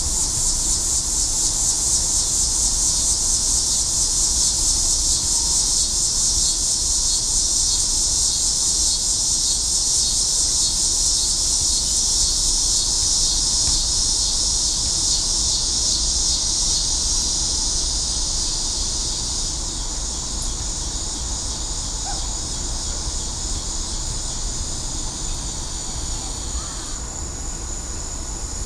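Dense, steady chorus of insects trilling, high-pitched with a fine rapid pulse, growing a little fainter in the last third.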